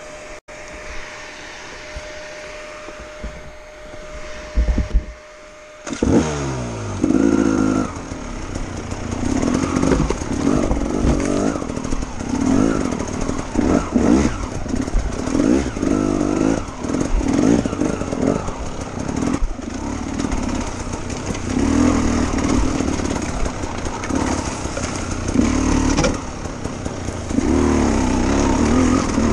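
2016 KTM 300 two-stroke enduro engine ridden over rough rocky ground. After a few seconds of quieter steady hum, the engine suddenly gets loud about six seconds in, then revs up and down in repeated surges every second or two.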